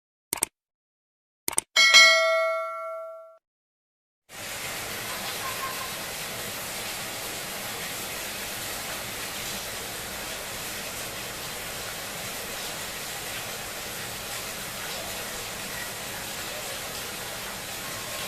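A couple of short clicks and a single bell-like chime that rings out and fades, then, about four seconds in, steady rain begins and runs on as an even hiss.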